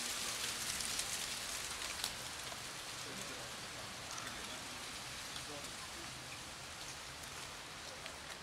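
Cats crunching dry kibble from a food tray: faint scattered clicks over a steady outdoor hiss.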